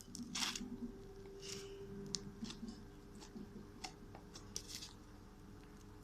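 Fluffy slime being pulled out of its container and handled: faint, scattered sticky clicks and soft squishes.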